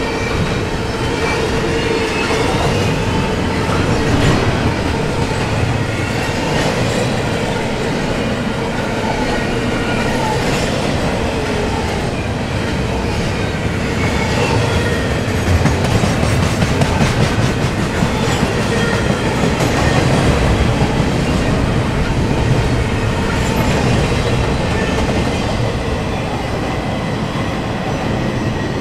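Double-stack intermodal container cars rolling past, steel wheels clattering over the rails in a steady clickety-clack, with thin squealing tones from the wheels at times.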